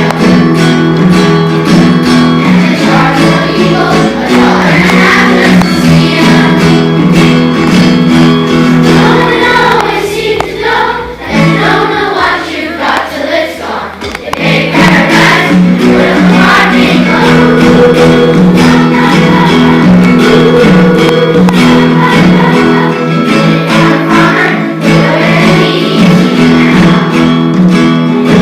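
A song with several voices singing together over instrumental accompaniment. It drops to a softer passage about ten seconds in, then comes back up.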